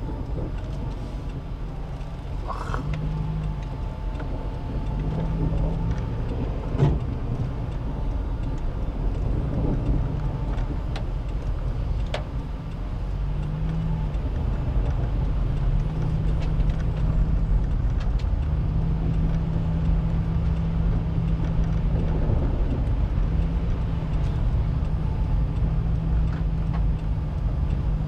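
A car driving on a wet, slushy road, heard from inside the cabin: steady engine and tyre rumble, with a low engine hum that swells and fades. A few sharp knocks stand out, the loudest about seven seconds in.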